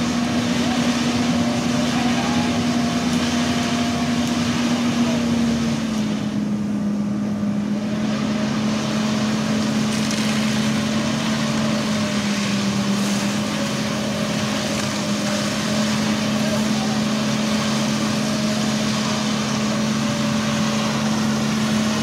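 Concrete mixer truck's diesel engine running steadily as its drum turns and discharges wet concrete down the chute; the engine note drops slightly about five seconds in.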